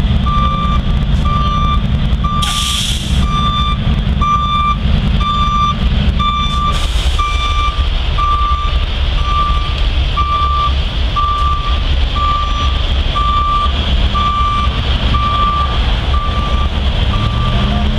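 Flatbed tow truck's reversing alarm beeping steadily about once a second on one pitch, over the low running of the truck's engine. Two short hisses come in the first half.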